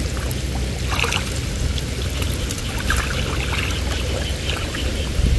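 Water sloshing and lapping around a person wading chest-deep through a canal, with a few louder splashes about one and three seconds in.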